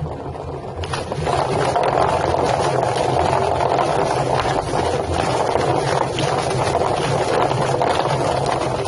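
Drum-type chicken plucking machine running: a dense clattering wash of rapid knocks over a low motor hum. It starts abruptly about a second in.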